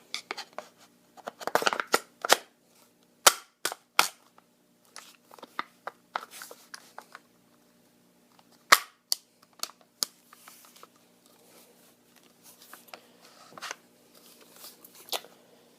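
Sharp clicks and knocks of the Walther-made HK MP5 .22LR's parts being handled and fitted back together as the grip goes back on, a scattered series of snaps with the loudest about three seconds in and near nine seconds.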